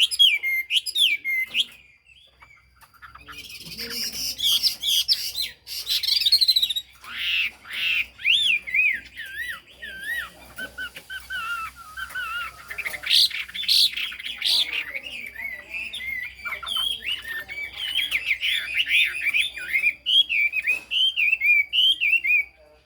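Chinese hwamei singing a long, varied song of rapid warbled and whistled phrases, pausing briefly about two seconds in.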